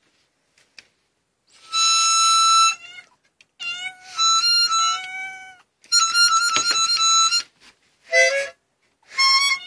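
Harmonica played in several loud held chords of one to two seconds each, with short gaps between them and some notes bending in pitch. A cat meows briefly a little after eight seconds in.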